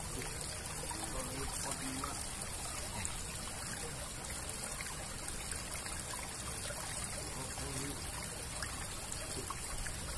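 Steady trickle of water running through a concrete drainage culvert.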